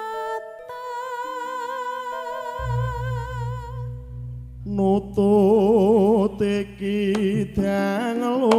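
Javanese gending music: a female sinden holds a long wavering sung note over sparse sustained instrument notes, and a low sustained drone comes in about two and a half seconds in. From about five seconds a louder voice takes over, singing with wide vibrato.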